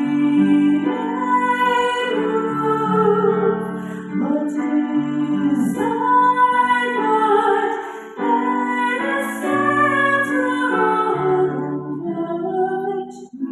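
A woman singing a slow worship song into a microphone, with sustained instrumental accompaniment beneath her voice.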